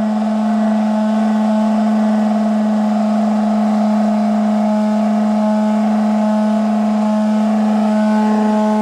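Electric hand sander running steadily on a wooden board, a constant motor hum at one pitch.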